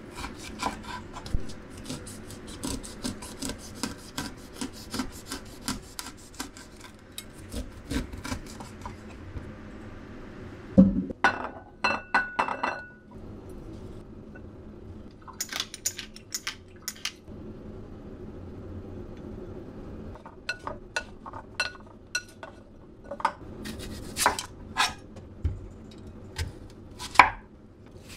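A chef's knife shaving kernels off an upright corn cob onto a wooden cutting board, a fast run of rasping strokes that stops after about nine seconds. Then a loud knock and a few ringing clinks of a spoon against a ceramic bowl and a plastic tub while seasoning is added, and from about twenty seconds the knife slicing an onion on the board in spaced cuts.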